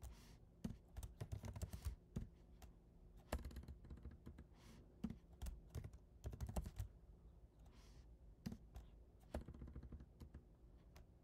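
Faint typing on a computer keyboard: short runs of keystrokes with pauses between them as a command is typed.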